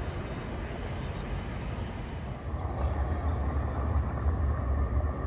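Steady rushing noise of a passing train, then, after a change about two and a half seconds in, city street noise with a low hum.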